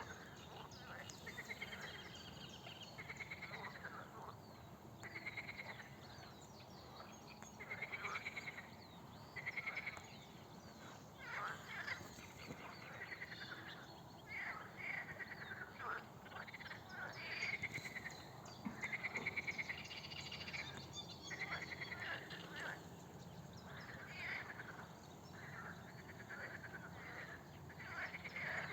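A chorus of frogs croaking: many short, pulsed, rasping calls, each under a second long, overlapping and repeating throughout.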